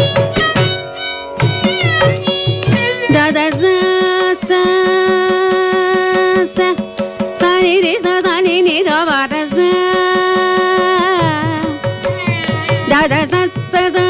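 Carnatic classical music in raga Bilahari: a melodic line of held and sliding, oscillating notes, over steady mridangam strokes.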